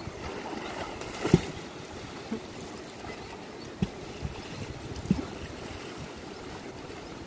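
Shallow, rocky river running steadily over stones, with a few short low thumps, the loudest about a second in.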